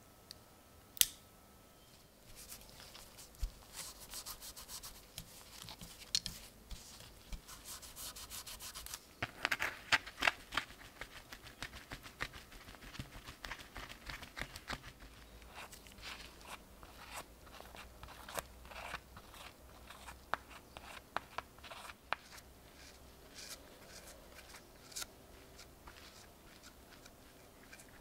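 Close-up handling sounds from gloved hands working on a small knife: a single sharp click about a second in, then irregular rubbing, scraping and small crackling ticks as a thick paste is worked on cardboard and spread over the handle.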